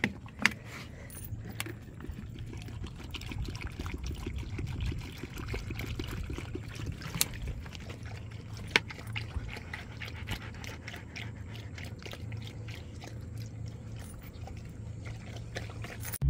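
Dogs lapping water from a small plastic dish: a quick, busy run of wet laps and clicks.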